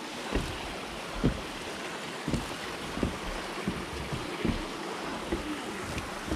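Footsteps of a walker on a hiking trail, irregular low thumps about one a second, over a steady rushing background noise.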